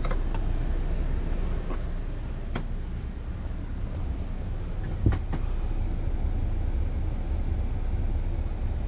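Steady low rumble with a few light clicks and one sharper click about five seconds in.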